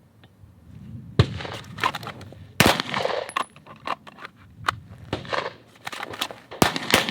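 A string of gunshots fired at irregular spacing by shooters on a range, some loud cracks and some fainter, each followed by a short echo. The first loud shot comes about a second in, and two come close together near the end.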